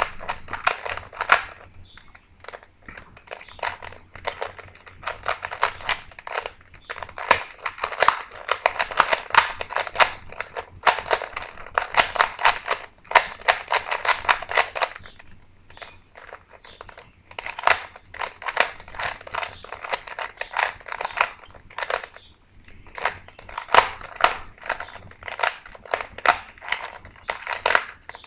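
Plastic Rubik's Cube being turned fast by hand in a speed solve: rapid clicking and clacking of the layers in bursts of turns, broken by brief pauses of a second or two.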